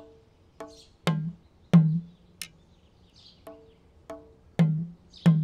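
Background music of sparse hand percussion: deep ringing drum strokes alternating with higher, pitched wooden knocks and a few sharp clicks, roughly one stroke every half second.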